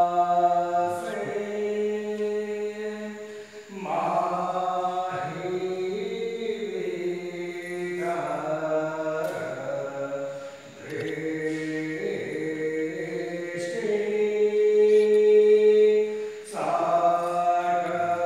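Hindu devotional chanting: voices hold long sung notes in phrases a few seconds long, the pitch stepping to a new note at each phrase break.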